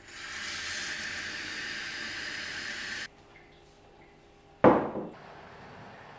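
A steady hiss for about three seconds that stops abruptly, then one loud knock about a second and a half later.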